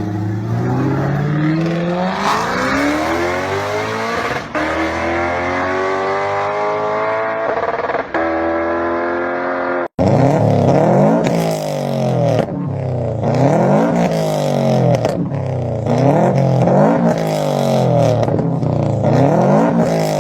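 Car engine accelerating hard, its pitch climbing steadily with short breaks at gear changes. After a sudden cut, an engine is revved up and down over and over, about every second and a half.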